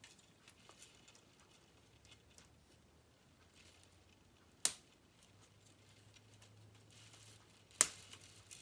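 Plastic K'nex construction pieces being handled and fitted together: faint small ticks and rattles, with two sharp clicks, one about halfway through and one near the end.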